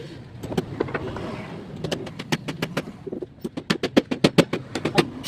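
A series of sharp knocks, scattered at first and then coming in a quick run about five a second toward the end.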